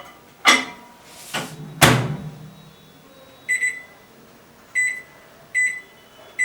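IFB microwave oven being loaded and set: a few clicks and a knock, then a thud of the door shutting about two seconds in. Three short high keypad beeps follow over the next few seconds as the one-minute timer is keyed in.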